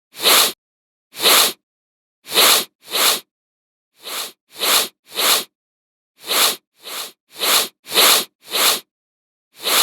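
A man sniffing again and again, the sniffs of a cold or flu: about a dozen short sniffs, some in quick runs of two or three, with short silent gaps between.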